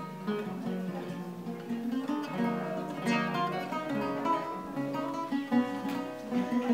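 Background music led by an acoustic guitar, plucked and strummed.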